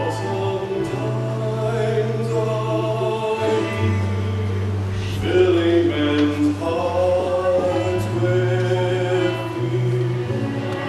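Men's gospel quartet-style vocal group singing in close harmony: long held chords that change every second or two over a sustained low bass note.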